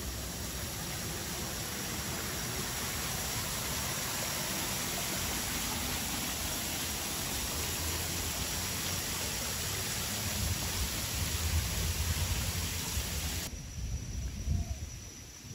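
Steady rush of water falling over a rock wall in a small cascade, with a low rumble underneath. Near the end it cuts off abruptly to quieter outdoor background.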